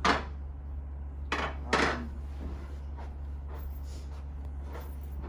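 Wooden boomerangs and other wooden artifacts clacking against each other and a tabletop as they are set down and handled: a sharp knock at the start, two more about a second and a half in, then a few faint taps.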